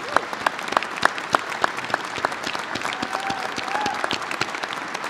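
A crowd applauding. One pair of hands close to the microphones claps loudly and evenly, about three times a second, over the general clapping through the first half.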